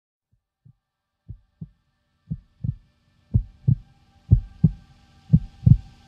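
Heartbeat sound effect: paired low lub-dub thumps about once a second, growing louder. A faint steady hum and a rising hiss swell in behind them.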